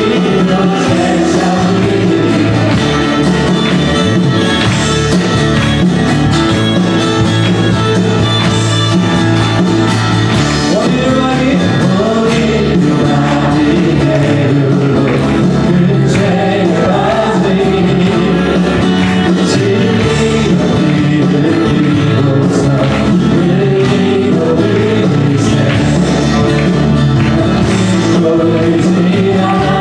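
Church worship band playing a contemporary praise song with voices singing along, over steady drums and cymbals.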